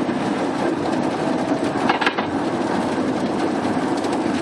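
Swarm of insects splatting against a moving car's windshield: a dense, rain-like pattering of many small hits over the hum of the car driving, with one sharper tap about two seconds in.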